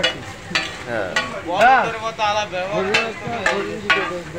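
Flat metal spatula scraping and clacking against a large iron griddle about every half second, tossing food that sizzles as it fries.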